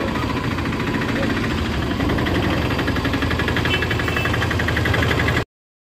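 Auto-rickshaw engine idling with a fast, even clattering rattle; it cuts off abruptly near the end.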